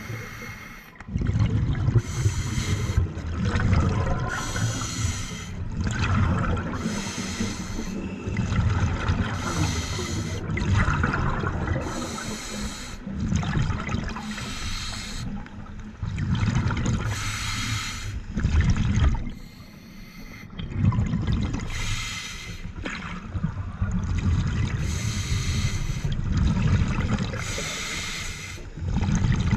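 Open-circuit scuba regulator breathing underwater. Hissing breaths drawn through the regulator alternate with rumbling bursts of exhaust bubbles, repeating every couple of seconds.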